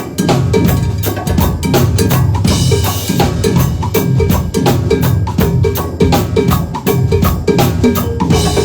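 Band music without vocals: a drum kit keeps a steady, busy beat over a walking bass line.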